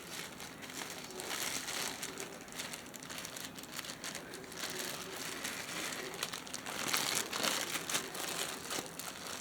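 Packaging crinkling and rustling as it is handled, in irregular crackles, a little louder about seven seconds in.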